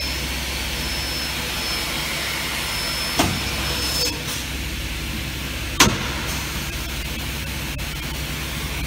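Aluminium drilling and tapping machine with two vertical spindles running: a steady motor hum with a high whine that stops about four seconds in, and two sharp mechanical knocks, one about three seconds in and a louder one about six seconds in.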